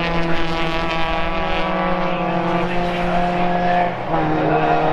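Car engine running at high, steady revs, its pitch shifting about four seconds in.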